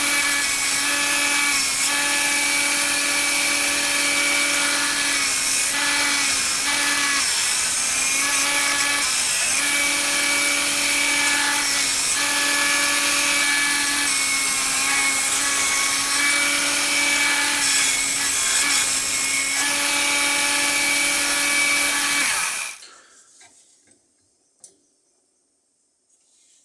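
Power grinder running at steady speed, grinding the steel edge of an old butcher's cleaver, with small dips as the work shifts against it. It cuts off about 22 seconds in, leaving near silence and one faint click.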